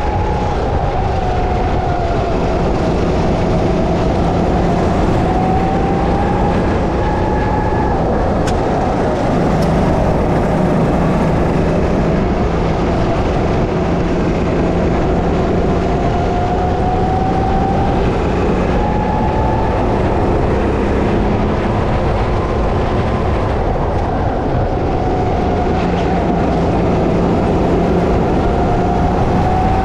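Go-kart engine running hard. Its whine climbs slowly and then drops off sharply several times as the throttle is worked around the circuit, over a loud steady rush of noise.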